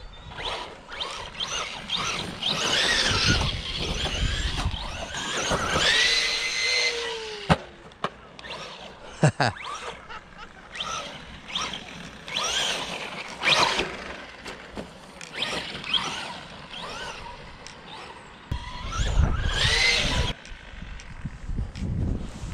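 Arrma Big Rock V3 3S RC monster truck's brushless electric motor whining, its pitch rising and falling as the truck speeds up and slows, with two sharp knocks around the middle.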